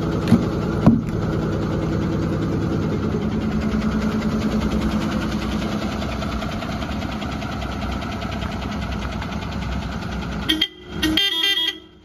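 Ashok Leyland truck's diesel engine idling steadily, with two sharp knocks about a second in. Near the end the truck's horn sounds one short, pulsing multi-tone blast, and then the sound drops away.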